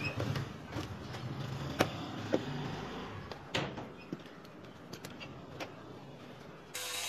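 Workshop handling noise, with a few sharp clicks and knocks, as a cobbler moves a sheet of sole material and handles tools. Music comes in near the end.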